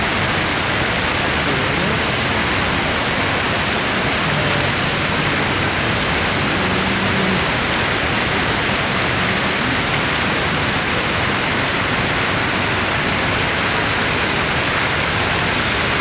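Rows of fountain jets spraying into a lake: a steady, even rush of falling water.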